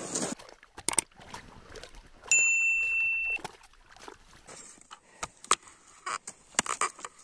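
A single steady high beep lasting about a second, a little over two seconds in. It is followed by scattered crunches and clicks of snow and gear being handled at an ice-fishing hole.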